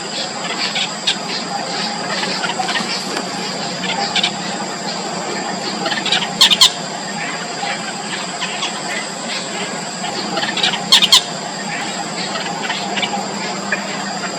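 Nestling birds giving high, squealing begging calls to be fed, with two loud flurries about six and eleven seconds in and softer cheeps between, over a steady hum.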